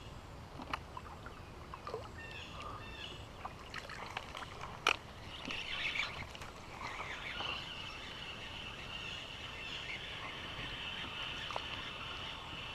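Wild animal calls: short high chirps and scratchy calls in the first few seconds, then a steady high-pitched call held from about seven seconds in.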